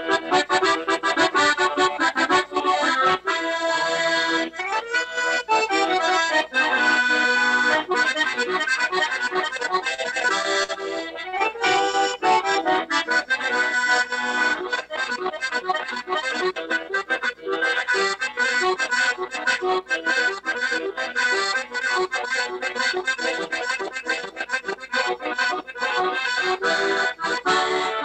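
Accordion playing a rhythmic tune, with sustained melody notes over pulsing chords, without a break.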